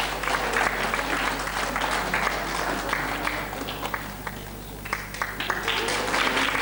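Audience applauding, a dense patter of many hands clapping; it thins out about four seconds in and swells again near the end.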